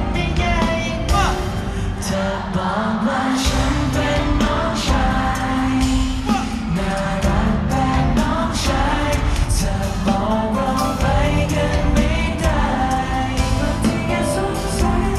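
Thai pop song performed live over a concert sound system: young men singing into handheld microphones over a steady beat.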